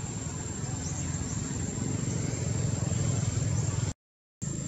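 Outdoor ambience dominated by a steady low rumble of distant traffic that swells a little toward the end, with a thin steady high insect whine and a few faint chirps; the sound cuts out completely for about half a second near the end.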